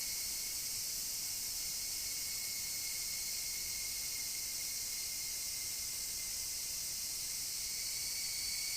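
Cicada call recording processed into a horror ambience: washed in deep, all-wet reverb and pitched down into a steady, unbroken high whine over a hissing drone, a sound meant to suggest distant screaming.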